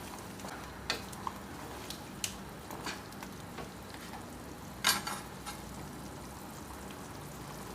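Beef sizzling as it fries in a pan with curry spices, stirred with a utensil that clicks against the pan a few times; the loudest click comes about five seconds in.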